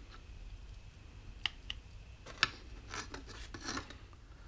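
Hard plastic model-kit parts handled and fitted together: a few light clicks between about one and a half and two and a half seconds in, and short rubbing scrapes of plastic on plastic toward the end.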